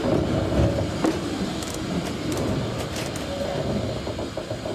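Narrow-gauge (2 ft) train carriage rolling slowly over the track and pointwork: a steady rumble with scattered clicks of the wheels over rail joints.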